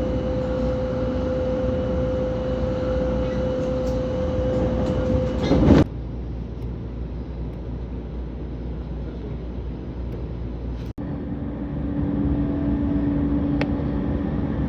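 Commuter train running, heard from inside the car: a continuous rumble of wheels on rails with a steady hum over it. The sound swells and changes abruptly about six seconds in, and cuts out briefly and changes again near eleven seconds.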